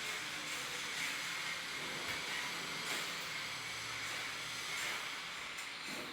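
Steady hiss with no distinct event.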